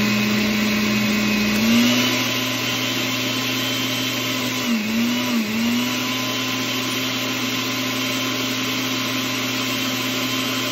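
Blender motor running steadily at a high, even pitch, stirring up paper-conservation pulp for leaf casting. Its pitch steps up about two seconds in and dips briefly twice around the middle.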